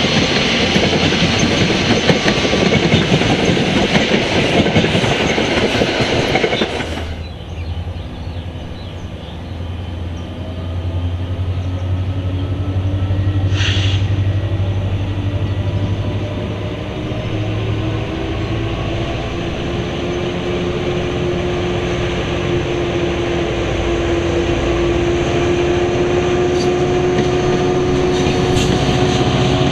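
New Jersey Transit train passing close with loud wheel and rail noise. After an abrupt change about seven seconds in, a locomotive runs with a steady low hum and a whine whose pitch slowly rises: the 'turbofan' sound.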